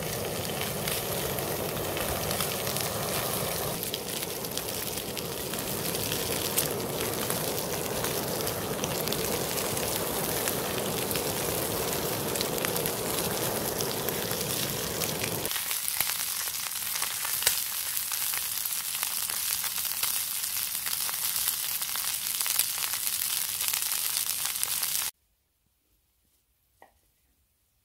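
Beef short ribs searing under a handheld butane blowtorch in a steel frying pan: a steady noise of torch flame and sizzling fat, with scattered crackles. It cuts off suddenly near the end to near silence, broken by one faint click.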